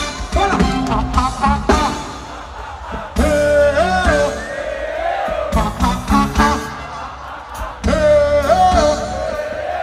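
Live reggae band playing over a deep bass line, with a voice singing a melody that includes long held notes.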